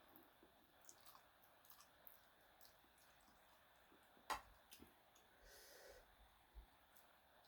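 Faint eating sounds close to the microphone: soft mouth clicks and lip smacks while chewing, with one sharper click about four seconds in and a brief soft hiss of breath or slurping about a second later.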